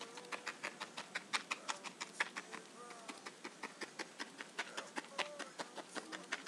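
Felting needle stabbing quickly and repeatedly through wool into a styrofoam block, a run of short crunching stabs at about five a second.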